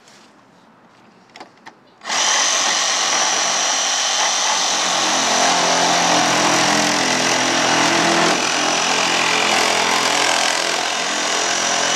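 Handheld power tool starting up about two seconds in and running steadily as it cuts through a Jeep Wrangler JK's plastic front fender flare.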